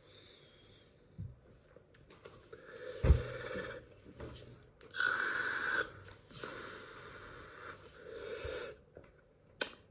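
A man breathing heavily, several long noisy breaths in and out as he catches his breath. A short thump comes about three seconds in, and a click near the end.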